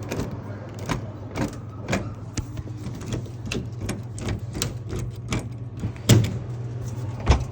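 Clicks, rattles and knocks of hands working on a Coke vending machine to get at its jammed coin mechanism, over the machine's steady low hum. Two louder thumps come near the end.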